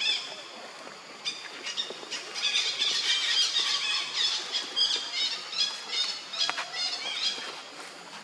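Baby monkey squealing: one high-pitched cry at the start, then a rapid run of shrill cries from about a second in until near the end.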